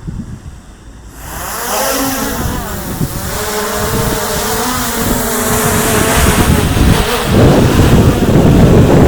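DJI Air 2S quadcopter's motors and propellers spinning up about a second in, a whine that wavers in pitch. From about seven seconds heavy wind buffeting the microphone takes over.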